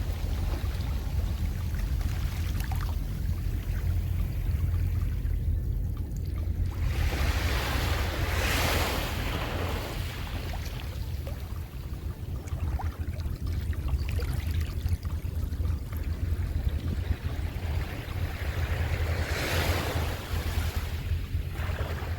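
Waves breaking on a beach, a surge of surf about every ten seconds, with wind rumbling on the microphone throughout.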